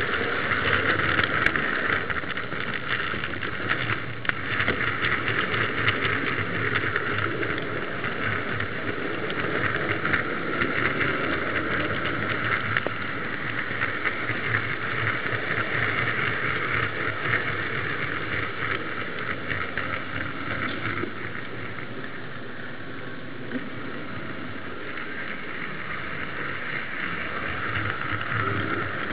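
H0 model tram pulling a goods wagon along its track, heard from a minicamera riding on the wagon: a steady running rumble of wheels on the rails with constant fine clicking.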